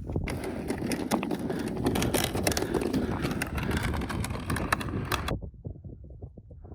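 Footsteps crunching over snow-covered lake ice, with wind buffeting the microphone. About five seconds in, the sound cuts abruptly to a quieter, muffled low rumble.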